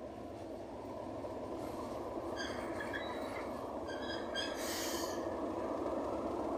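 Class 37 diesel-electric locomotive's English Electric V12 engine running as the loco approaches slowly, its rumble growing steadily louder. Intermittent high-pitched squeals come in from about two seconds in, with a short hiss a little over halfway through.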